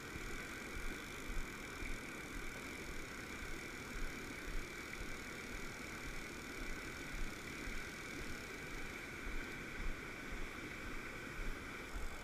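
Steady rush of a small mountain-stream waterfall and cascade, with irregular soft low thumps.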